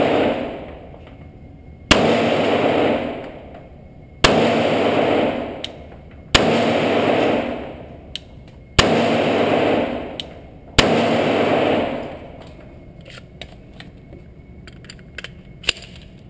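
Glock 30 .45 ACP pistol firing 230-grain hardball: five shots about two seconds apart, each with a long echo off the walls of an indoor range. Near the end, a few light clicks of the pistol being handled.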